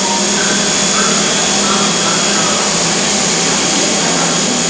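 Fadal CNC vertical machining center milling a part with flood coolant: a loud, steady whir of spindle, cutting and coolant spray inside the enclosure, with a high steady whine over it.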